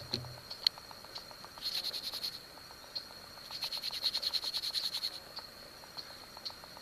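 Animal chorus of a steady high-pitched trill with two bursts of rapid, evenly pulsed calling, the second and longer one about halfway through, typical of frogs and crickets. Faint light clicks sound here and there.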